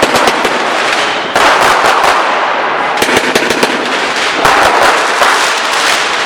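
Consumer fireworks and firecrackers going off in the street: a dense, continuous crackle of many rapid sharp bangs. Fresh volleys break out about a second and a half in, again about three seconds in, and again at about four and a half seconds.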